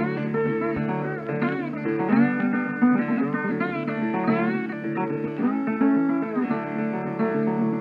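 Background music led by guitar, plucked notes and chords with notes that slide up and down in pitch.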